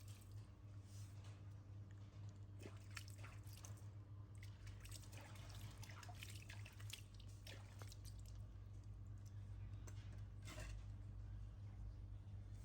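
Faint, scattered wet drips and small squishy clicks over a low steady hum.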